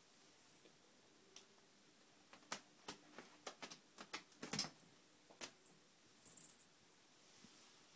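Faint clicks and ticks of a kitten's claws catching and pulling in a fabric curtain as she climbs it. A louder knock comes a little over halfway through, and a brief rustle follows near the end.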